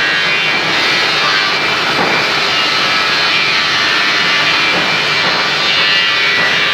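A machine running steadily and loudly, a dense hissing roar with no change in pace, and a couple of faint clicks.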